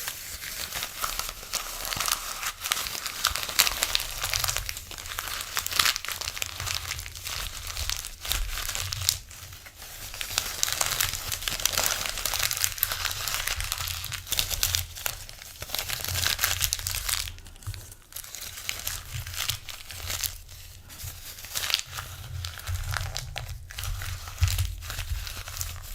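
Paper being torn and handled over and over: crisp, crackling rips and crinkles with brief pauses between tears, over a faint low hum.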